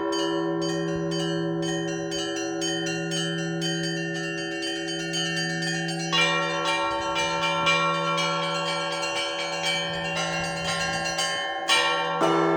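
Russian Orthodox church bells ringing in a peal: a large low bell struck about every two seconds under a rapid rhythmic pattern on small high bells. Mid-sized bells join in about halfway and again near the end.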